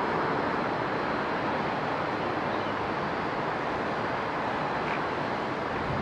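Steady outdoor background noise: an even hiss with no distinct events.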